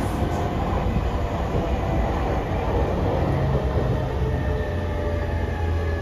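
Running sound of an E231 series 0 electric commuter train, heard inside the passenger car: a steady rumble of wheels on rail, with a faint whine from the drive running through it.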